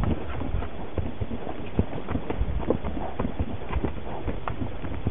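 Horse's hooves clip-clopping at a walk on a dirt trail, about three hoof strikes a second, over a low steady rumble.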